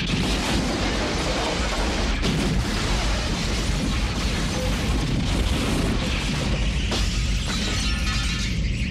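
Loud film action soundtrack: dramatic music mixed with booming and crashing effects over a steady low rumble.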